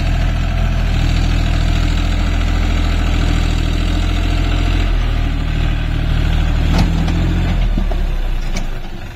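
John Deere 5050D tractor's three-cylinder diesel engine running steadily. Near the end its low note drops and gets quieter, with two sharp clicks.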